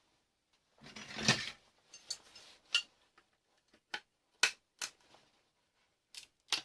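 Hand dismantling of an alarm control box for scrap: small metal and plastic parts being handled and set down. A short clatter about a second in, then a string of sharp, separate clicks and clinks.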